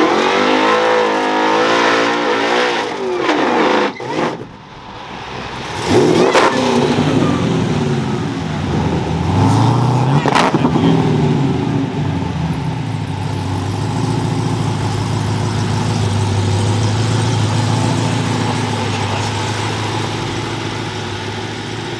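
Drag cars' engines at the start line: revving with the pitch swinging up and down for the first few seconds, a quick rev up and down around six seconds, a rising rev about ten seconds in, then an engine idling steadily for the rest.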